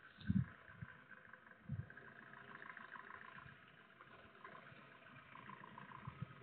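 Faint running of a vehicle engine as the vehicle moves slowly. Two short low thumps come in the first two seconds. The sound is thin, as picked up by a security camera's microphone.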